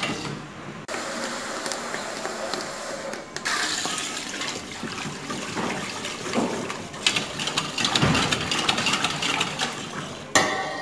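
Wire whisk beating through a thin flour-and-water mixture in a stainless steel pot, the liquid sloshing and swishing with the wires scraping and clicking against the pot, as water is whisked into a toasted flour base.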